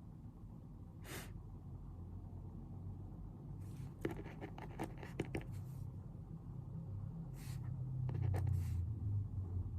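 Pen writing on paper: short scratching strokes, one about a second in, a quick run of strokes and small clicks around four to six seconds, and a few more near the end, over a steady low hum.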